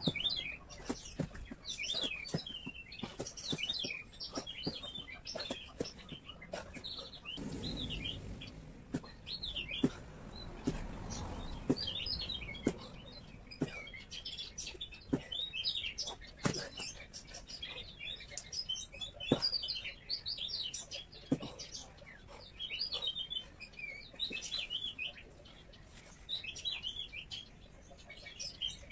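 Small birds chirping and twittering continuously. Scattered sharp thumps and slaps break in, several of them loud, from bare feet and hands landing on a tiled floor during jumping exercises.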